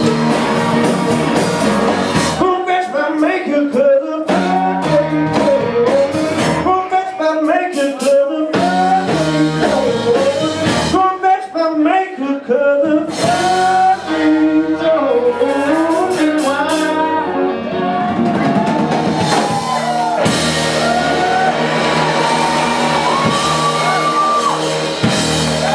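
Live blues-rock band playing, with electric guitars, bass guitar and a drum kit, and a voice singing over the top. In the first half the bass and drums drop out in several brief breaks, then the full band plays on.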